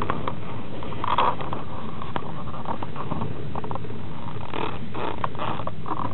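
Passenger train running on the rails, heard from inside the carriage: a steady low rumble with irregular clicks and rattles from the car.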